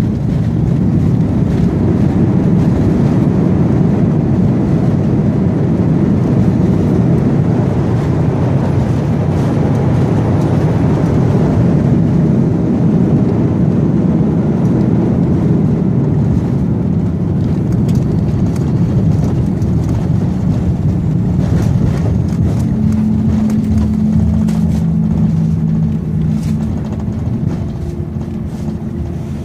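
Jet airliner's engine and runway noise heard from inside the cabin during the landing rollout: a loud, steady rush that eases off near the end as the aircraft slows. A few steady humming tones come in about three-quarters of the way through.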